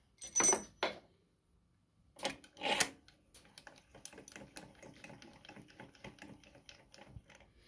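Steel rod clinking against the mini lathe tailstock, with a short metallic ring, twice in the first three seconds. Then a long run of faint, rapid ticking as the tailstock handwheel is wound.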